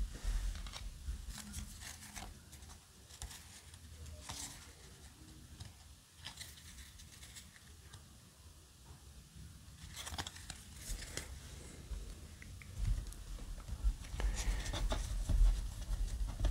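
Yu-Gi-Oh! trading cards being handled: faint sliding and rustling of cards against each other, with scattered light clicks, busier near the end as the cards are laid down on the table.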